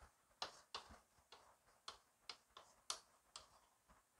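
Chalk clicking against a blackboard as a word is handwritten: faint, irregular sharp taps, about a dozen of them.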